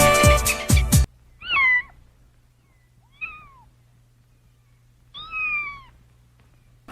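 Music cuts off about a second in, then an animal gives three short high cries about two seconds apart, each rising and then falling in pitch, meow-like.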